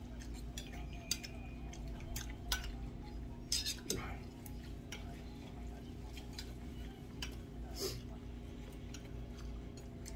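Metal spoon clinking and scraping against a small stainless steel bowl while food is scooped up, a scattered run of light clicks over a steady low hum.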